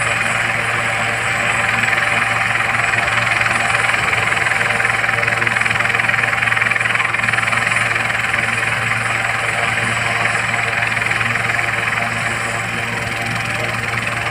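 Turbine helicopter running on the ground with its rotors turning: a steady engine whine and hiss over a constant low rotor hum.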